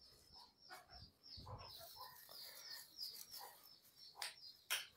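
Faint calls of desi chickens in a coop: a string of short, high, falling chirps with a few soft low clucks. The birds are frightened. Two sharp clicks come near the end.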